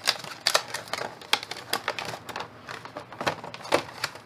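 Clear plastic blister tray of a trading-card collection box crackling and clicking as it is handled, a quick irregular run of sharp clicks.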